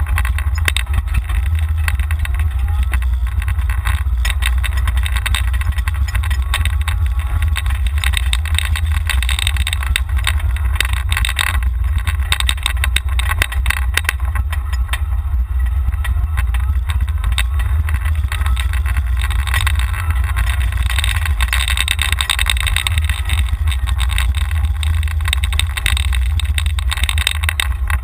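Golf cart driving, heard from a camera mounted on the cart: a loud, steady low rumble with constant rattling and clicking from the cart as it rolls over the pavement.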